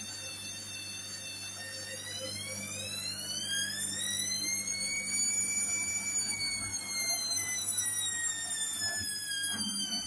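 Hoover H Wash and Dry washer-dryer's drum motor whining during the spin cycle. The whine rises in pitch from about two seconds in as the drum speeds up, peaks in the middle and falls back toward the end as it slows, over a low steady hum.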